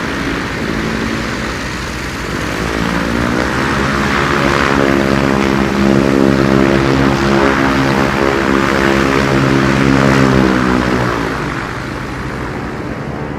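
Radio-controlled Corsair model airplane's motor and propeller running steadily under a strong rushing noise. A pitched motor tone comes in about three seconds in and fades out near the end.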